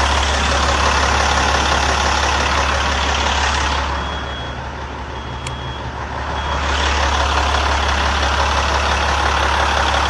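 Caterpillar 3406E inline-six diesel in a 1997 Kenworth T600 running steadily, just started after a crank-no-start traced to a bad fuel hand priming pump. It goes quieter for a couple of seconds midway.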